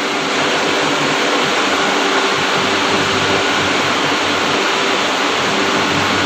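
Steady, loud rushing noise with a faint steady hum underneath, unchanging throughout.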